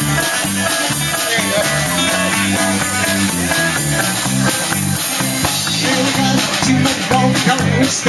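Band music with guitar and a steady beat.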